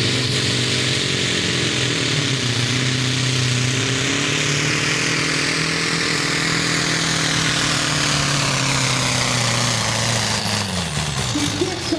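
Scania 142H pulling truck's diesel engine running flat out under load as it drags the weight sled. About ten seconds in, the engine note drops away in pitch.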